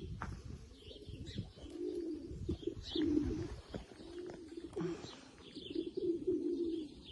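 Racing pigeons cooing, one low warbling coo after another, with a few faint higher chirps among them.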